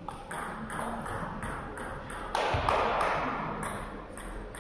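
A rally of table tennis ball strikes on bats and table, about three a second, broken off about halfway by a loud burst of noise with a thud as the point ends; a few lighter ball taps follow.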